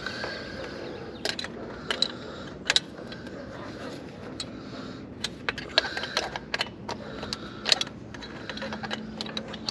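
Irregular sharp metallic clicks and clinks of a wrench working a tight nut on an Isuzu Trooper's carburetor mounting, coming in clusters.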